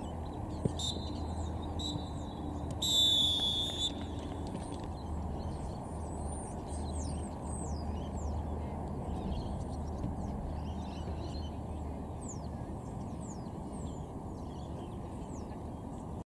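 Referee's whistle: one long blast of about a second, about three seconds in, after a couple of fainter short blasts, the full-time whistle. Small birds chirp from about six seconds on over a low wind rumble.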